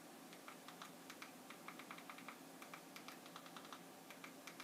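Faint quick runs of small plastic clicks: remote-control buttons pressed over and over to move a cursor across an on-screen keyboard, over a faint steady electrical hum.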